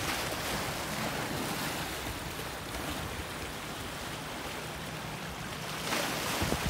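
Shallow sea water washing and lapping at the shore, with wind rumbling on the microphone. A wash swells louder about six seconds in.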